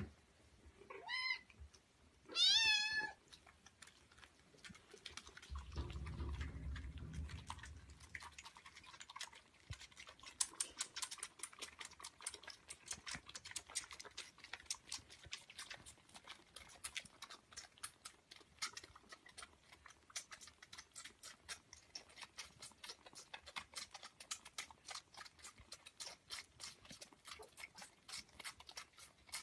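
Kittens mewing twice near the start, then a brief low rumble, then rapid clicking of kittens suckling at milk bottles.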